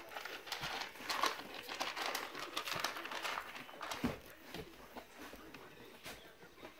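A French bulldog puppy's paws scrabbling through a tray of wood-pellet litter, a dense patter of small clicks and crackles that thins out after about four seconds as it steps onto the fleece bedding.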